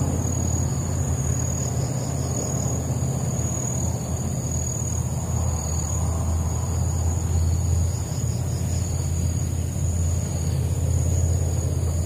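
Insects chirring steadily at a high pitch over a continuous low rumble.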